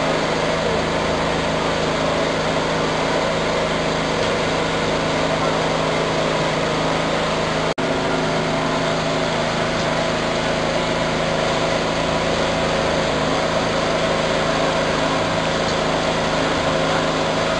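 A small engine or motor runs steadily with a constant mechanical drone.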